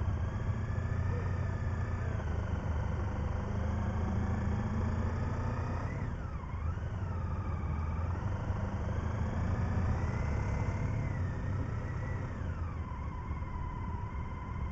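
Motorcycle engine running as the bike rolls slowly, a steady low rumble under a whining tone that dips and rises about six seconds in and falls again near the end.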